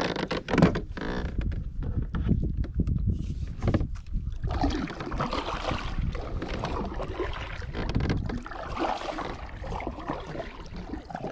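A kayak being paddled: the paddle blades dip and splash in the water stroke after stroke through the second half. Before that there is a low rumble of wind and handling on the microphone.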